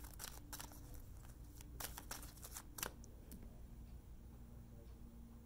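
A deck of tarot cards being handled and shuffled: a quick run of short card snaps and rustles over the first three seconds, then only quiet room tone with a faint steady hum.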